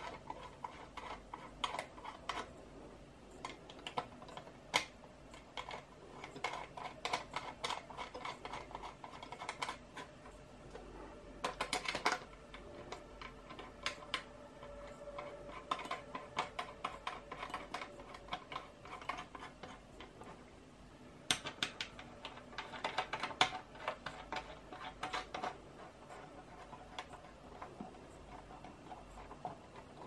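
Faint, irregular small clicks and metallic ticks as Noctua thumb screws are turned by hand on their threads and the steel mounting bars are handled, with a few louder bunches of clicks.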